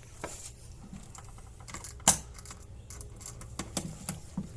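Irregular light clicks and taps of hand tools and small hardware being handled, with one sharp click about two seconds in and a few more near the end.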